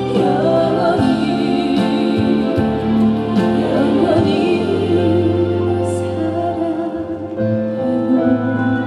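A slow ballad performed live with band accompaniment through the stage sound system, sung in places.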